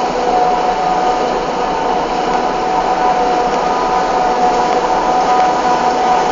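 Claas Jaguar 980 forage harvester working under load, chopping maize and blowing it into a trailer, with the tractor pulling the trailer running beside it. The sound is a loud, steady mechanical din with a constant high whine.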